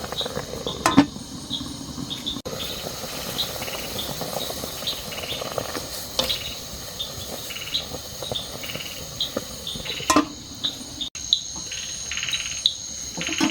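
Insects chirping: a steady high drone with short chirps repeating every half second or so, and several short buzzy trills. A few sharp clicks stand out.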